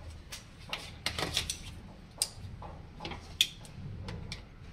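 Scattered light clicks and knocks of a plastic twist throttle being handled and fitted onto a handlebar, with a screwdriver being set into its clamp screw; the sharpest knock comes about three and a half seconds in.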